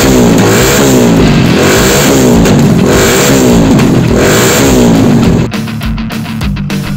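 Small engine of a green mini quad revved hard about four times in quick succession, the pitch rising and falling with each blip. The revving cuts off about five and a half seconds in, with rock music playing underneath throughout.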